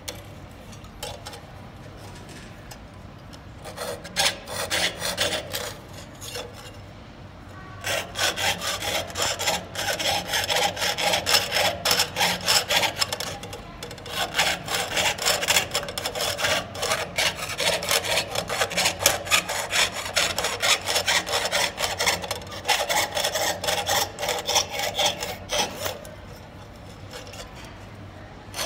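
Jeweler's saw blade cutting thin copper sheet: a rapid stroke-by-stroke rasping. It starts briefly about four seconds in, then runs steadily from about eight seconds in, with a short pause midway, and eases off near the end.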